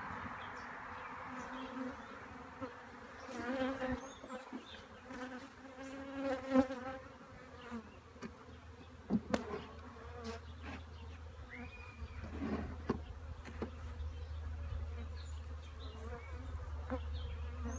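Honey bees buzzing in flight around a freshly installed hive, the hum swelling and fading as bees pass close, loudest a few seconds in. A few sharp wooden knocks follow as the hive's outer cover is set in place.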